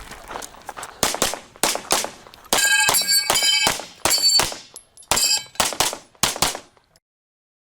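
A string of pistol shots, about a dozen, fired in quick succession, with steel targets ringing under the hits in the middle of the string. The sound cuts off suddenly near the end.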